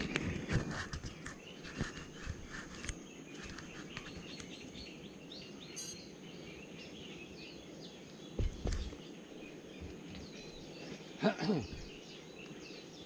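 Outdoor forest background with birds chirping on and off over a thin steady high tone. A few clicks come early, a low thump about eight and a half seconds in, and a brief rustle and bump around eleven seconds as someone moves close to the microphone.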